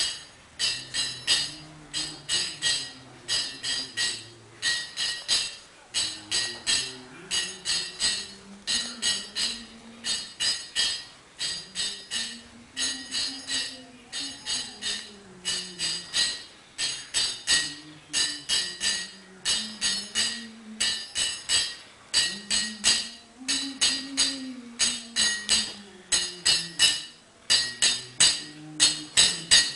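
Kirtan: small hand cymbals struck in a steady, quick rhythm, several clashes a second, with a man's low voice chanting a slow melody that rises and falls underneath.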